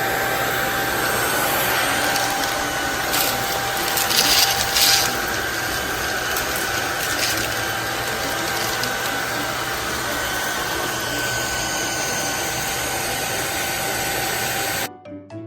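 PRETTYCARE P2 cordless stick vacuum's brushless motor running with a steady whine and rush of air. There are a few brief crackles three to five seconds in, and the vacuum stops suddenly near the end.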